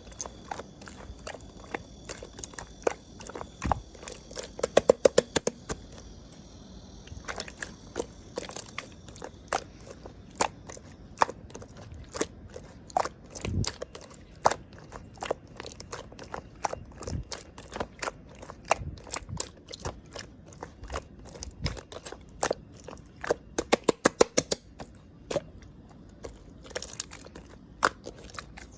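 Clear slime being squeezed and worked by hand, giving irregular wet clicks and pops, with two quick runs of rapid clicks about five seconds in and again near twenty-four seconds.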